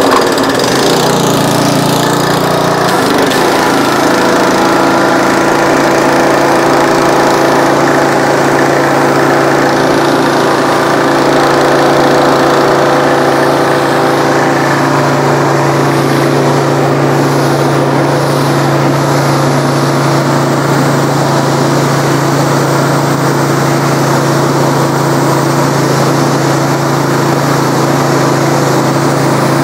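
Troy-Bilt gas pressure washer's small four-stroke engine running steadily just after a cold start. It settles in the first few seconds, then holds an even governed speed.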